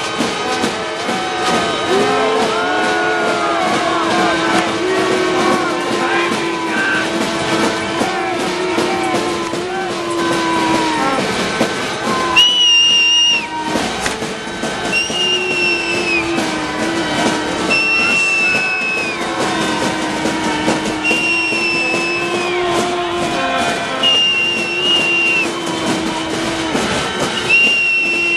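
Protest crowd din: long, blaring horn notes that waver and bend, constant banging and clatter, and from about halfway on a run of short shrill whistle blasts repeated every second or two, one longer blast just before them.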